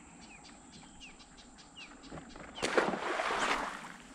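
Small birds calling with short, falling chirps, several in a row. About two and a half seconds in, a sudden loud rushing noise lasting about a second drowns them out.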